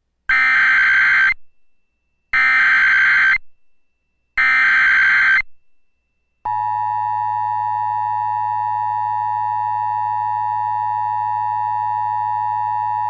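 Emergency Alert System SAME header: three one-second bursts of digital data tones, each about a second apart. About six and a half seconds in, a steady attention tone begins and holds, signalling that an emergency message is about to be read.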